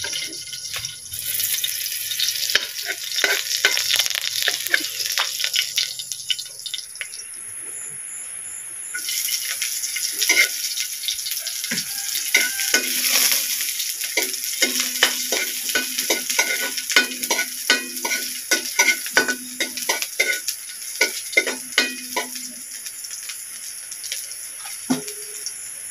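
Sliced onions sizzling in hot oil in a metal wok, with a metal spatula scraping and tapping against the pan again and again as they are stirred.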